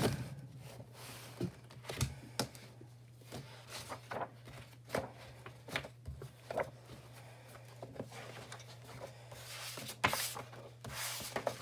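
A hardcover sketchbook being opened and its paper pages handled on a wooden desk: scattered soft knocks and paper rustles, with a denser papery swish of pages turning about ten seconds in. A steady low hum sits underneath.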